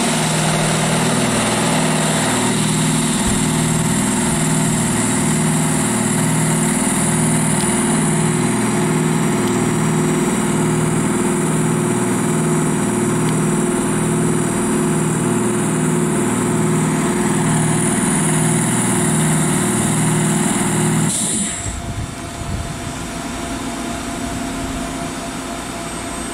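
Standing FS E656 'Caimano' electric locomotive with its on-board machinery running: a loud, steady drone with a low rhythmic pulse of about one and a half beats a second and a high hiss. The pulsing cuts off suddenly about 21 seconds in, leaving a fainter hum.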